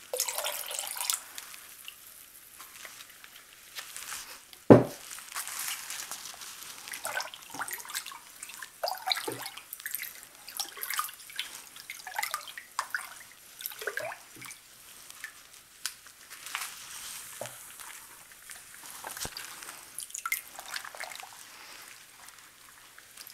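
Dye water splashing and dripping in a plastic tub as a shirt is dipped in and lifted out, in small irregular patters and drips. A single sharp knock about five seconds in is the loudest sound.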